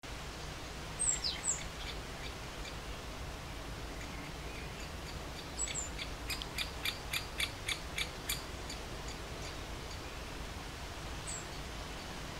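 Great spotted woodpecker pecking at a feeder: a run of about eight sharp taps, three or four a second, starting about six seconds in. Short, high falling bird calls come twice about a second in, twice more just before the taps, and once faintly near the end.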